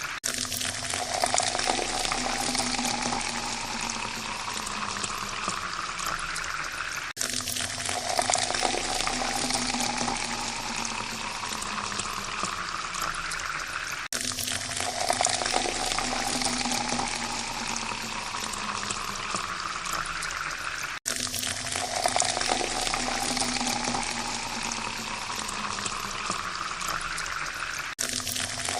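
Water poured into a glass, a splashing stream with a hollow tone that rises steadily in pitch as the glass fills. The same pour of about seven seconds starts over four times, each one cut off abruptly.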